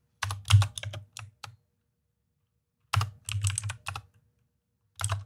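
Typing on a computer keyboard: quick runs of key clicks, a pause of about a second and a half in the middle, then more typing, starting again near the end.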